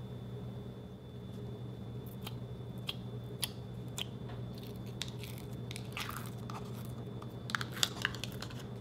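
Thin plastic tub of clear slime being squeezed and tipped out by hand: scattered sharp crackles and pops, thickest between about six and eight seconds in, over a steady low hum.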